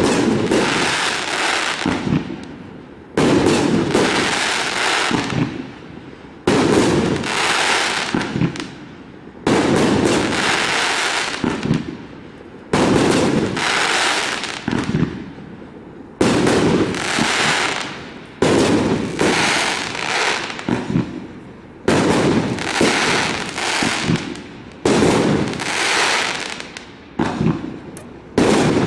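A firework cake firing coconut (palm) and chrysanthemum shells in a steady sequence: a sharp bang about every two to three seconds, each trailing off in a fading hiss.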